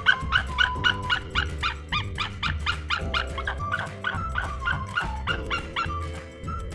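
A rapid, regular series of short animal calls, about four a second, over background music.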